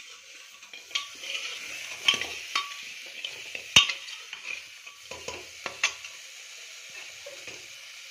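Mutton pieces sizzling as they fry in a pressure cooker, stirred with a ladle that clanks sharply against the pot several times, loudest a little before four seconds in. The sizzle dies down toward the end.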